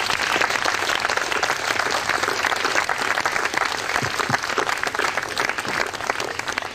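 Audience applauding, many hands clapping steadily, easing off slightly near the end.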